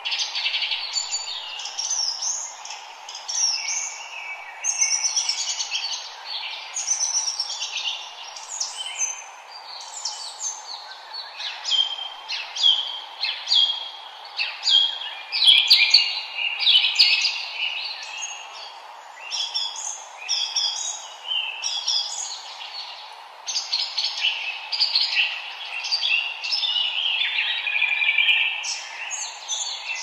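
Chorus of forest songbirds singing and chirping in many short, overlapping phrases, over a steady background hiss.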